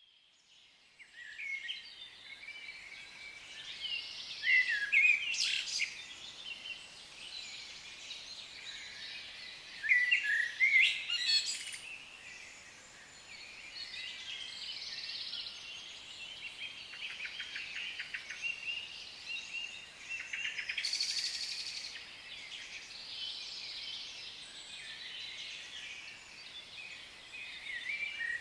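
Forest birds chirping and calling, many short overlapping calls and trills, fading in over the first second or so.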